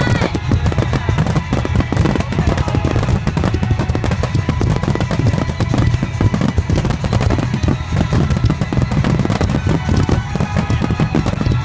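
Fireworks finale: a dense, unbroken barrage of shells bursting and crackling, with deep booms, many reports a second.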